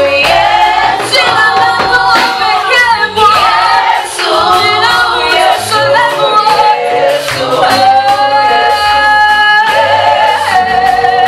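A vocal group singing a Swahili hymn in harmony, with a long held note about eight seconds in.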